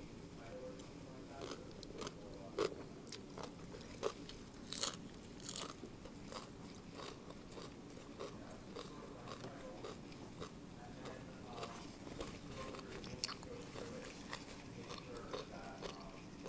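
Close-up crunching and chewing of Thai green papaya salad: a run of crisp bites, the loudest about five seconds in.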